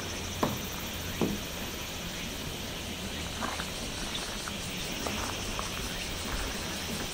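Insects chirring steadily in a high, faintly pulsing drone, with two sharp clicks about half a second and a little over a second in.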